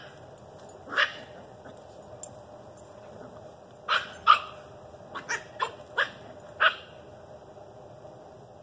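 A dog barking in play: about nine short, sharp barks, one at the start and one a second in, then a quick irregular run of seven between about four and seven seconds.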